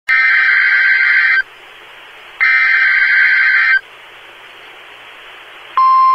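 NOAA Weather Radio emergency alert: two harsh, screeching bursts of digital SAME header data, each about a second and a half, with radio hiss between them. Near the end the steady, single-pitched 1050 Hz weather radio warning alarm tone begins. Together they signal a routine weekly test of the warning alarm.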